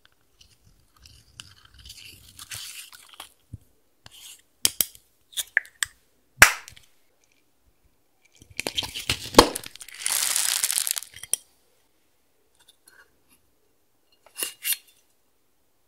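Close-up ASMR handling of slime ingredients: soft scraping of pressed eyeshadow with a small tool, then scattered sharp plastic clicks and taps, and a louder crunchy rustle lasting about three seconds in the middle.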